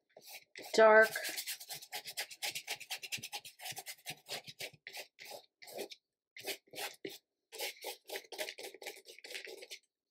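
Paintbrush scrubbing acrylic paint onto a painting in quick, scratchy back-and-forth strokes, several a second, with a couple of brief pauses.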